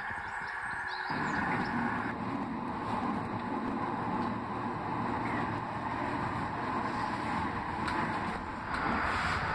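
A Northern passenger multiple unit passing at close range, a steady mix of engine and wheel-on-rail noise that starts abruptly about a second in.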